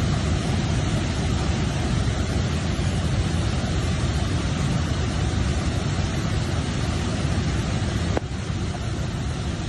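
Rushing floodwater: a steady, loud torrent noise that dips slightly after a click about eight seconds in.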